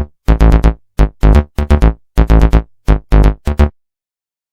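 Electronic outro music: a quick run of short, punchy synthesizer notes with heavy bass, stopping shortly before the end.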